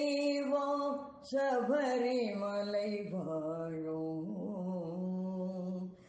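Tamil devotional song to Lord Ayyappan: a solo voice sings a melodic line, pauses briefly about a second in, then holds a long low note near the end.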